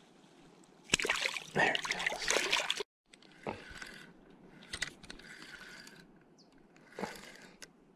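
Water splashing and sloshing in shallow lake water as a trout is let go by hand: a loud stretch of splashing that cuts off suddenly about three seconds in, then a few softer sloshes.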